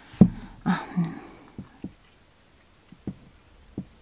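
Scattered soft knocks and taps of small crafting tools and the work being handled on a tabletop, a cluster of them in the first second and then a few single taps.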